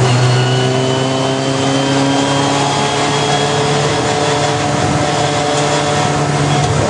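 Honda racing car's engine heard from inside the cockpit, pulling through a gear with its pitch climbing steadily, over a steady low drone. The pitch drops at a gear change at about the start and changes again near the end.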